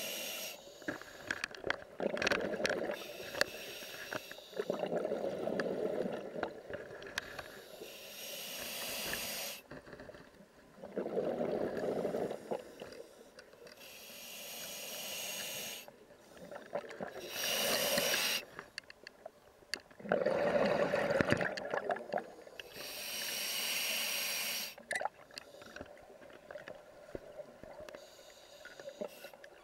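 Scuba diver breathing underwater through a regulator: a hiss on each inhale, then a burst of bubbling on each exhale, in a slow cycle of about five breaths.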